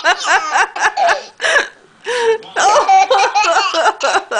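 A baby laughing in a run of quick, breathy bursts, with a short break near the middle.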